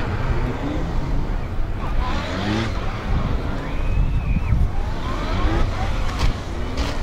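Honda CB1300P police motorcycle's inline-four engine revving hard and easing off again and again as it is flicked through a tight slalom of cones, the pitch rising several times over a steady low rumble.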